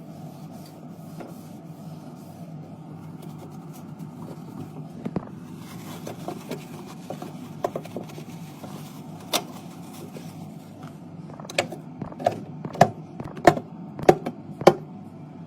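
Drinks being restocked in a fridge: bottles and cans knocking and clinking against each other and the shelves. The clinks come quicker and louder in the last few seconds, over a low steady hum.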